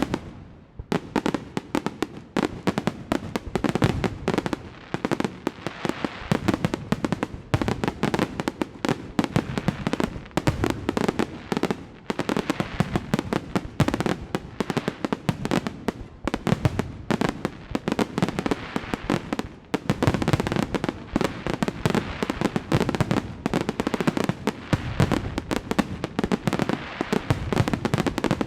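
Fireworks display: a dense, unbroken barrage of rapid bangs and crackling.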